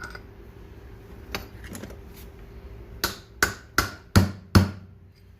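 A hammer tapping on metal parts of a Bobcat 444 drive sheave to work a part loose: a few light clicks, then five sharp ringing taps in quick succession about halfway through.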